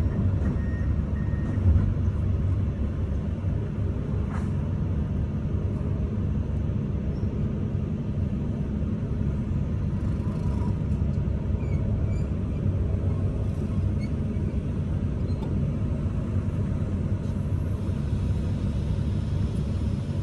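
Komatsu PC210 excavator's six-cylinder diesel engine running steadily, heard from inside the cab while the machine swings. A single short clunk about two seconds in.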